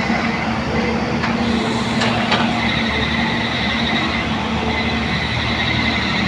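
A motor running steadily with a low hum and a constant high whine, with a few faint clicks about a second and two seconds in.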